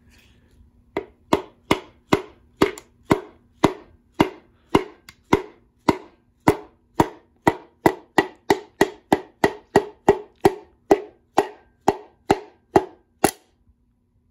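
A Wiseco piston being tapped down through a band-type ring compressor into a cylinder bore of a 6.0 L LS engine block: a long run of sharp, even taps, about two to three a second, starting about a second in, quickening a little, with a short pause near the end.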